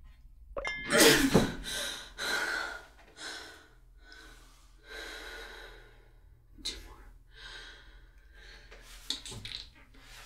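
A woman breathing hard in a string of ragged gasps and pants, the loudest a strained groan that falls in pitch about a second in.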